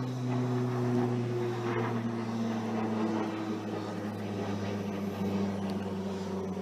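Distant engine drone, most like a propeller aircraft passing over, its pitch sliding slowly down, over a steady background hiss.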